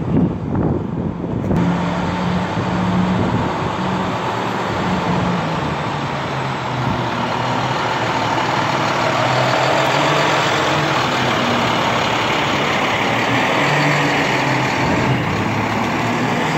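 Garbage truck's engine running steadily, with a loud, even hiss of mechanical noise over it that starts about a second and a half in.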